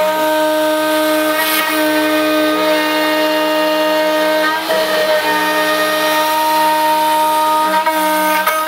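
1.25 HP DeWalt DW611 trim router running as a CNC spindle, a steady high whine as its bit cuts into wood, with a brief dip in the sound about five seconds in.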